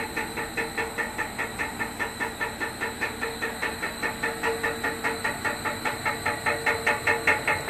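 Clamshell press making a rapid, rhythmic pulsing noise, about four or five pulses a second, over a steady tone; it grows louder near the end.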